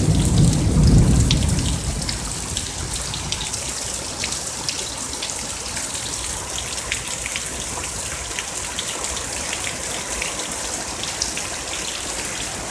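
Heavy rain pouring steadily, with individual drops ticking close by. A low thunder rumble fades away over the first couple of seconds.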